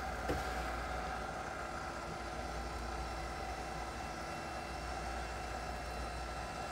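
Litter-Robot 3 Connect's drive motor turning the globe back to its home position at the end of a cleaning cycle: a steady motor hum with a high whine, with a single click just after it starts.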